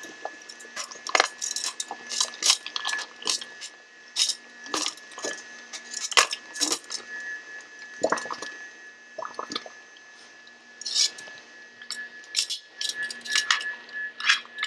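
Metal tongs clinking and knocking irregularly against a stainless steel pot and the plastic sippy cup, bottle and pacifier parts being pushed around in it, with some sloshing of the boiling water.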